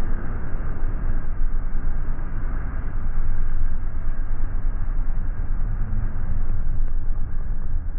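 A game-fishing boat under power with churning wake water behind it: a steady, loud rumbling rush of noise with no distinct events.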